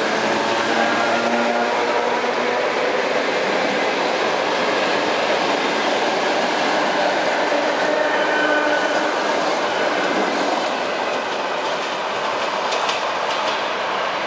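ED4M electric multiple unit running past close by: a steady loud rush of wheels on the rails, easing slightly in the last few seconds.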